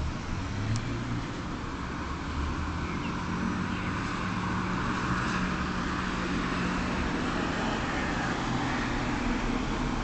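Street traffic noise, with a motor vehicle's engine growing louder about three seconds in and dying away near the end.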